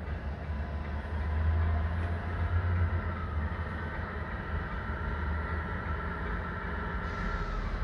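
Tamiya 1/14 Mercedes-Benz 1850L RC truck driving slowly: a steady low diesel-like engine drone with a thin whine above it, swelling slightly a second or two in.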